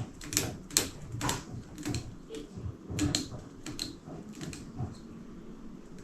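Rubber cat-whisker bowstring silencer strands being plucked and flicked apart by hand, a run of irregular sharp ticks and snaps that thin out near the end.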